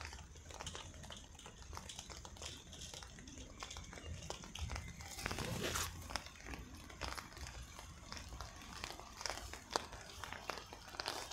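Footsteps through wet grass and garden debris with rustling: an irregular string of soft crunches and ticks, busiest about five to six seconds in, over a low rumble.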